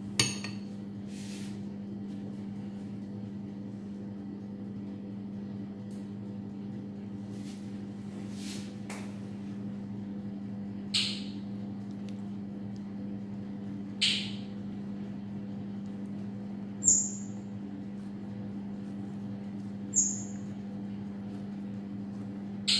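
A steady low hum, with short, sharp high chirps about every three seconds in the second half.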